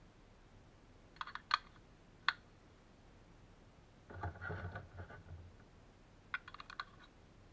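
18650 lithium-ion cells being handled and pushed into a plastic four-cell battery holder against its spring contacts: small plastic-and-metal clicks and rattles in three groups, about a second in, a fuller, duller clatter about four seconds in, and a quick run of clicks near the end.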